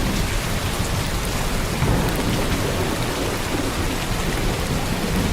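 Steady heavy rain falling on a roof, with a continuous low rumble of thunder underneath.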